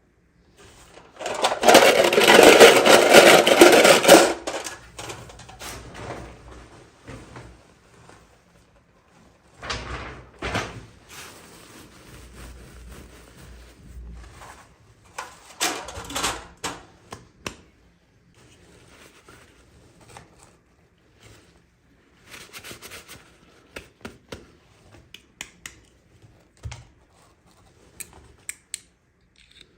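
Toy packaging being handled and opened: a loud rustle of packaging about a second in, lasting some three seconds, then scattered clicks, taps and short rustles of small plastic pieces and wrapping.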